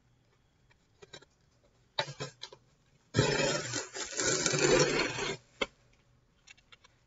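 Shipping packaging being opened by hand: a few small clicks and rustles, then about two seconds of loud ripping and scraping, and a single knock just after.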